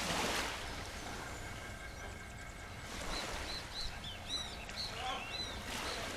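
Waves washing onto a shore, the rush of surf swelling at the start and again about three and six seconds in. From about three seconds in, birds give a quick run of short, high chirps.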